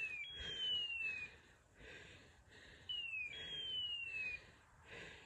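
Hunting dog's beeper collar sounding its point signal, a short falling tone followed by a longer falling tone, twice, about three seconds apart: the sign that the setter is standing on point.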